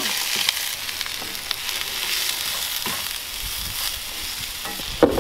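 Sliced mushrooms, shallots and serrano peppers sizzling in a hot cast-iron skillet as they are stirred with a slotted spatula, with a few light clicks of the spatula against the pan.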